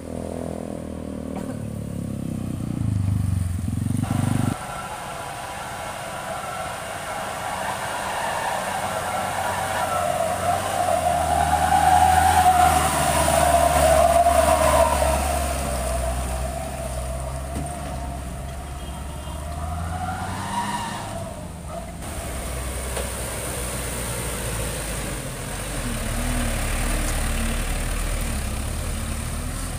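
Light truck engines working hard under load as trucks crawl over broken road, swelling to their loudest about twelve to fourteen seconds in. The sound changes abruptly about four and a half seconds in and again about twenty-two seconds in.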